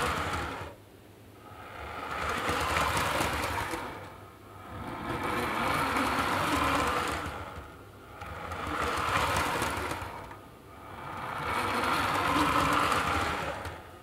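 Small electric motor of a model train whirring as it runs over the track and Peco pointwork, the sound swelling and fading about every three and a half seconds.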